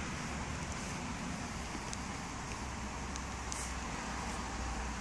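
Jaguar F-Type V8 S's supercharged 5.0-litre V8 running steadily at low revs, a low even hum under a steady hiss, heard from inside the cabin.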